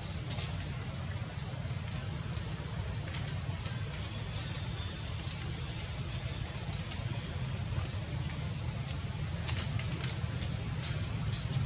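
Short, high-pitched animal chirps repeating irregularly, about once a second, over a steady low rumble.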